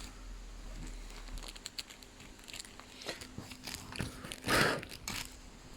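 Plastic packet crinkling, with small clicks as it and the screws inside are handled, and one louder rustle about four and a half seconds in.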